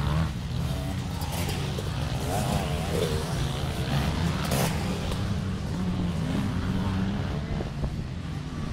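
Dirt bike engines running and revving as the bikes ride past one after another on a dirt track.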